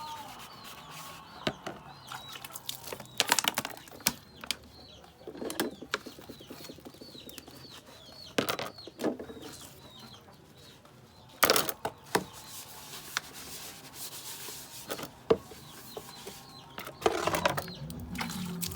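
Household handling noises: bursts of rustling, scraping and knocking several times. A bird chirps repeatedly in the background.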